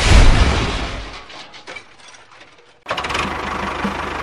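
A loud crash as a toy steam locomotive and its tender tumble off the track into a pit, fading over about a second. Near the end, a steady engine-like running sound with a fast regular pulse starts abruptly.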